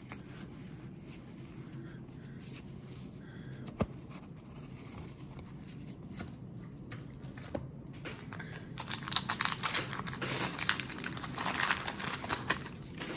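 Paper baseball-card pack wrapper crinkling and tearing in a dense crackle over the last four seconds, after a quiet stretch with two single clicks from the cards being handled.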